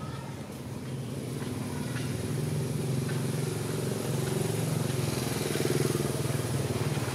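A motorcycle engine running steadily, growing louder over the first few seconds and then holding.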